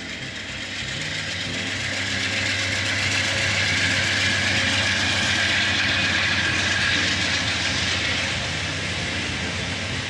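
Amtrak diesel-hauled passenger train passing, a steady noise of wheels running on the rails over a low engine drone. It grows louder over the first few seconds and then holds.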